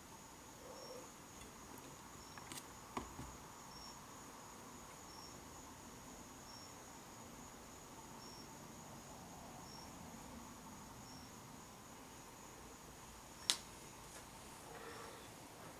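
A cricket chirping faintly and regularly, one short high chirp about every second and a half, over a steady faint high whine. A few sharp clicks break in, the loudest near the end.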